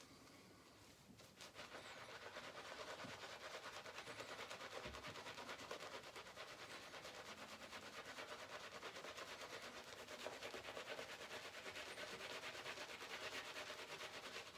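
Shaving brush swirling coffee shaving soap lather in rapid, steady swishing strokes, picking up about a second and a half in. The lather is still too foamy and wet, being worked toward a denser paste.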